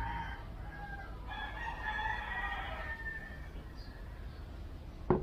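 A rooster crowing, one long call lasting about two seconds in the first half. Near the end there is a single sharp knock.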